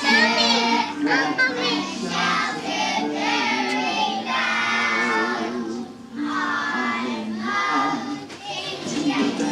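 A group of young children singing a song together over musical accompaniment, with a short break about six seconds in.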